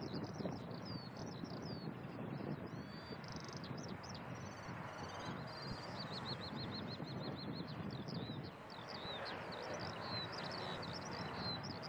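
Small birds chirping, with a fast trill of evenly repeated notes about six seconds in, over the steady distant rumble of a departing Boeing 767's jet engines as it climbs away.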